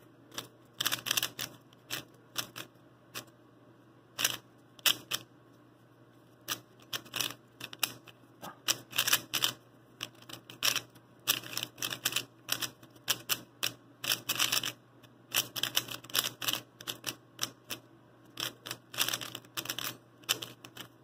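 A cheap stickerless 3x3 puzzle cube, dry out of the box, being turned fast in a solve: quick flurries of plastic clicks and clacks from the layers turning, broken by short pauses, the longest about two seconds some four seconds in.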